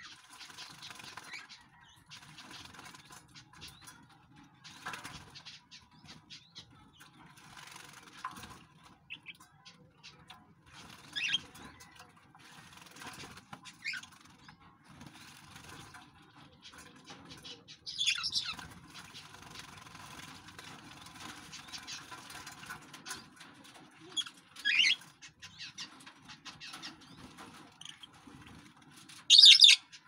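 Small finches bathing in a shallow metal water dish: repeated short bursts of splashing and wing fluttering, with a few sharp chirps, the loudest near the end.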